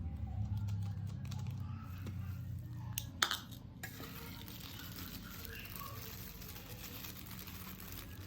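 Kitchenware being handled: one sharp, ringing clink about three seconds in, with faint knocks and handling sounds around it.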